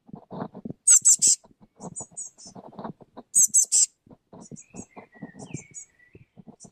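Eurasian blue tit calling: short bursts of three or four thin, very high notes, loudest about a second in and again about three and a half seconds in, with fainter bursts later. Soft low ticking and rustling run underneath.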